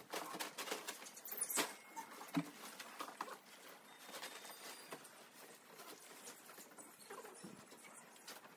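Nylon dome tent being handled as it is pitched: fabric rustling and scraping with many light clicks and scuffs, and a couple of sharper knocks in the first few seconds.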